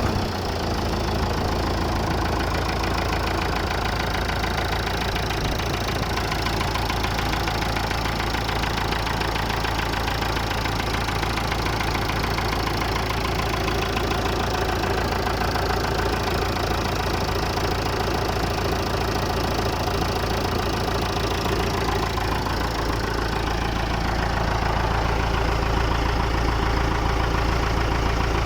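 Massey Ferguson 290 tractor's Perkins diesel engine idling steadily just after starting, following an engine repair; it grows slightly louder near the end.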